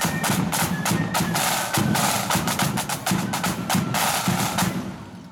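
Marching flute band's snare drum corps playing a rapid pattern of sharp stick strokes and rolls, fading out near the end.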